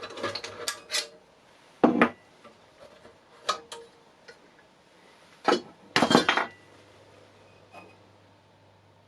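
Metal hand tools clinking and knocking against the bench grinder while its left-hand wheel is being worked on for balancing: a quick run of clinks at the start, single knocks about two, three and a half and five and a half seconds in, and another short cluster around six seconds.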